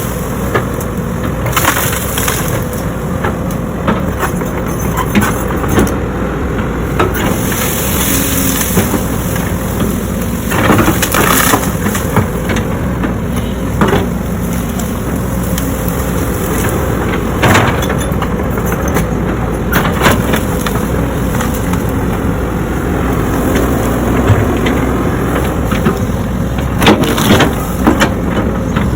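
A heavy earthmoving machine's diesel engine running steadily while clearing land, with scattered sharp cracks and crunches of wood and branches breaking, the loudest about 11 seconds in and near the end.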